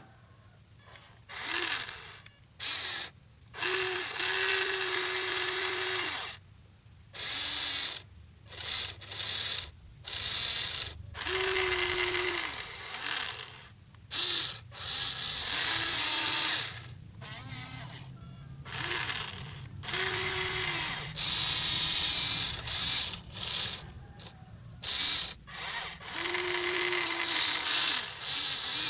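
A Huina 1593 RC excavator's electric gear motors whir in repeated short bursts, from under a second to a few seconds each. They stop and start again as its controls are worked.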